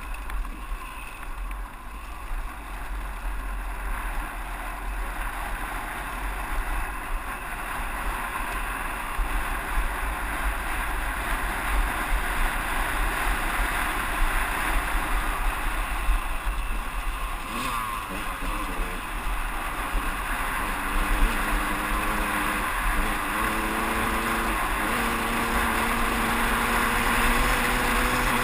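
Two-stroke engine of a 2001 KTM 200EXC dirt bike running under way, with wind rumbling on the onboard camera microphone. From about two-thirds of the way through, the engine's note turns into a steady drone that steps up in pitch a few times.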